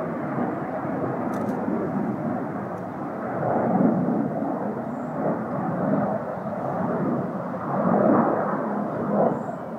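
Distant roar of a Hawker Hunter jet's Rolls-Royce Avon turbojet, a steady rushing sound that swells louder twice, about four and eight seconds in.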